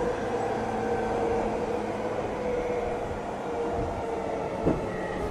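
Running sound inside JR East E231-900 series motor car MoHa E231-901: wheels on the rails under a steady hum and whine from its Hitachi IGBT-VVVF traction inverter and motors. A single short thump comes near the end.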